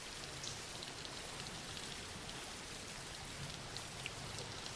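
Steady soft rain, with small drops pattering on a surface.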